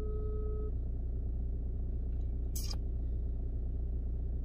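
Telephone ringback tone over a phone line: one steady beep that ends under a second in, then a gap, over a steady low hum, with a short click about two and a half seconds in.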